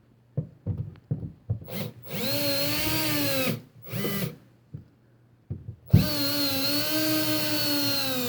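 Power drill-driver motor whining in two long runs with a short burst between, driving the mounting screws of a GFCI receptacle into the electrical box; the pitch sags at the end of each run as the screw seats. A few light knocks of handling come first.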